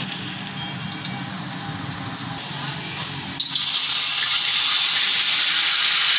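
Hot oil sizzling in a wok. About three and a half seconds in, chopped garlic goes in and the sizzle jumps suddenly to a much louder, steady hiss.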